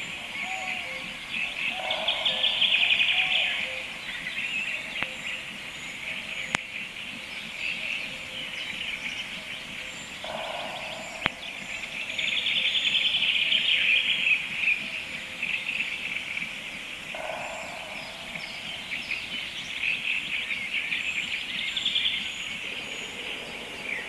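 Songbirds singing in a conifer forest: several birds overlapping, with louder trilled songs a couple of seconds in and again around twelve seconds in. A single sharp click sounds about eleven seconds in.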